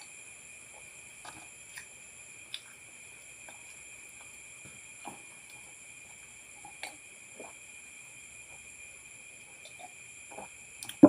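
A man drinking juice from a glass: faint sips, swallows and small mouth clicks scattered every second or so, over a steady high-pitched whine. Near the end a sharp knock as the glass is set down on the table.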